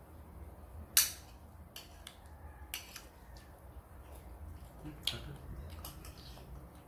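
Metal spoons clicking against a small plate as ice cream is scooped and eaten: a few sharp clicks, the loudest about a second in, others near three and five seconds.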